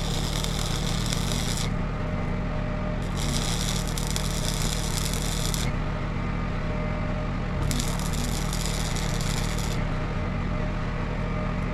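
Stick (arc) welding: three crackling welding arcs of about two seconds each, tacking steel pieces together with a small welding rod. A generator runs steadily underneath.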